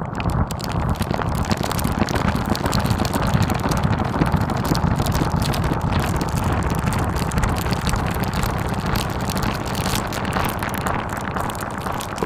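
Steady low rumble under a dense crackling noise: an ambient soundscape drone.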